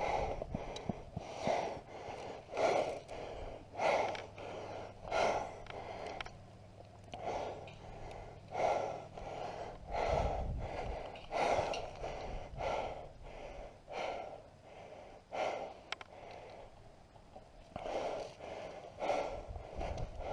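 A person breathing hard close to the microphone, with about one noisy breath a second, as if moving on foot.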